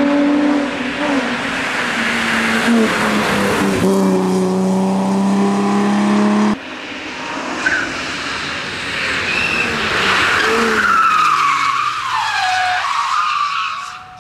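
Race car engine running hard at high revs. About six and a half seconds in there is an abrupt cut, then the car goes past with its engine note falling while the tyres squeal in wavering high tones.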